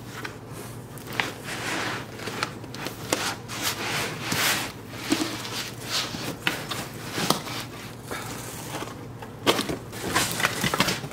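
Handling noise from unpacking a Creality Ender 3 3D printer: the metal frame and bed are pulled out of their foam packing insert and cardboard box, making irregular rustling and scraping with scattered clicks and knocks.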